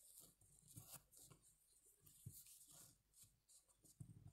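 Near silence, with faint scattered rustles of sewing thread and felt being handled as the thread is knotted off.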